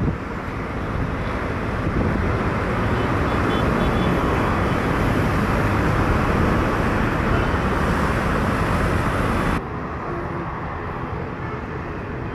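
Jet engines of an Airbus A320 on its landing rollout: a loud steady roar with a faint high whine, swelling about two seconds in. It drops abruptly to a quieter steady rumble near the end.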